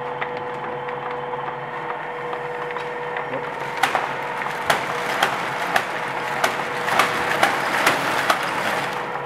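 1920 paper bag machine running steadily under power. From about four seconds in, sharp snaps come roughly twice a second as the paper feed is engaged and bags are cut and formed.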